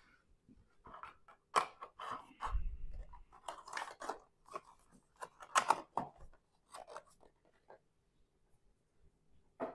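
Packaging being handled by hand: irregular crinkling and rustling with small clicks, and a dull bump on the table about two and a half seconds in.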